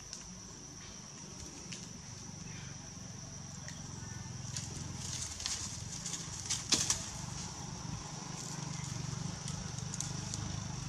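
Outdoor ambience: a steady high-pitched insect drone, with dry leaves crackling and rustling in short clicks under grooming macaques, loudest about two-thirds of the way in.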